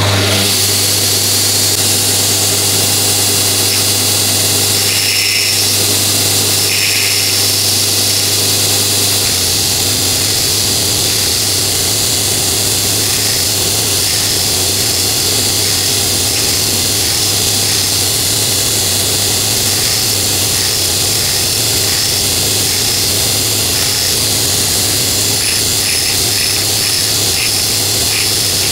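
Belt grinder running steadily with a constant low hum, the abrasive belt hissing, while the tip of a steel twist drill is pressed in against the belt and pulled back, grinding it sharp.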